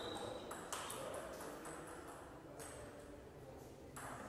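Table tennis balls clicking on tables and bats: about six sharp, irregularly spaced clicks, with faint voices behind.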